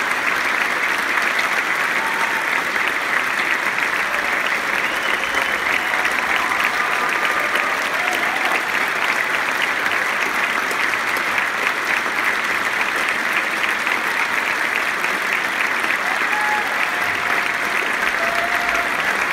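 Theatre audience applauding steadily, a dense, even clapping that holds without a break.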